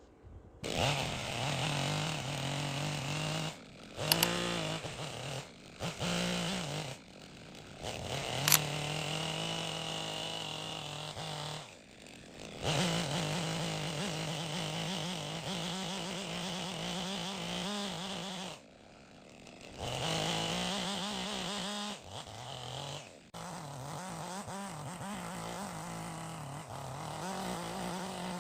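Chainsaw running at high revs, its pitch sagging and recovering, with several short drops in revs in between. A sharp click about eight seconds in.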